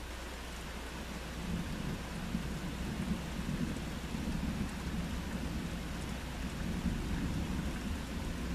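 Steady rain falling, with a long low rumble of thunder that comes in about a second and a half in and keeps rolling.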